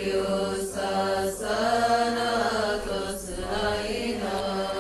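Chanted singing of a Coptic Arabic praise hymn (madeeh) carrying a wavering melody between sung lines, softer and less distinct than the solo voice around it.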